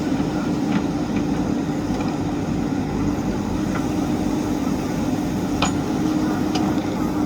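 JCB backhoe loader's diesel engine running steadily, with a few faint metallic clinks and knocks.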